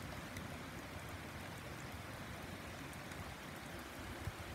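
Heavy rain falling steadily, an even hiss.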